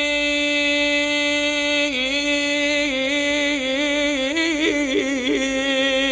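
A man's voice chanting a drawn-out vowel of an Arabic supplication: one long note held steady for about two seconds, then wavering up and down in melodic ornaments.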